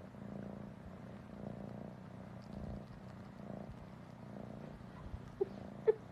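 Domestic cat purring softly and steadily, swelling about once a second with each breath. Near the end come three or four short, pitched calls, louder than the purr.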